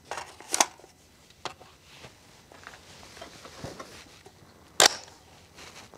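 Springfield Armory Saint Victor .308 AR-10-style rifle being handled at the bench as it is readied to fire: a sharp metallic click about half a second in and another near five seconds, with fainter clicks and rustles between.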